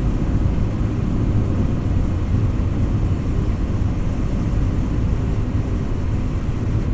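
Car driving along at a steady speed: a steady low rumble of engine and road noise.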